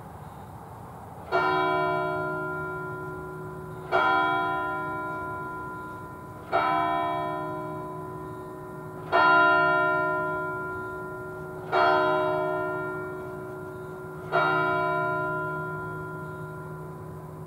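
A single church bell struck by its hammer six times, about two and a half seconds apart. Each stroke is at the same pitch and rings on, fading slowly until the next. This is the Angelus ringing.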